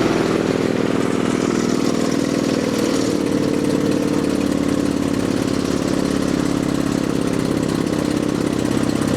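Fuel-injected gasoline engine of an old skid steer running steadily, just after a hard cold start that it needed long cranking to get through.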